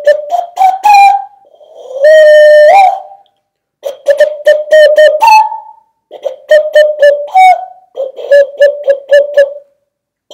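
Hand whistle blown into cupped hands: a loud, hollow whistling tone in quick short notes, mostly on one pitch with occasional jumps a few notes higher, played in short phrases with brief pauses. About two seconds in comes one longer held note that slides up at its end.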